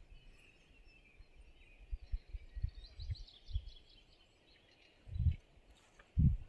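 Outdoor ambience with a small bird singing faintly, a quick run of short high notes in the middle, over a faint steady high hiss. Low rumbles and thumps come and go, the loudest about five seconds in.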